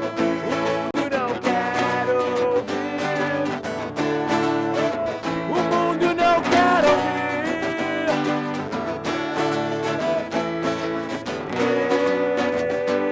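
A band playing a song, with guitars prominent and a melody line of long held notes that slide between pitches.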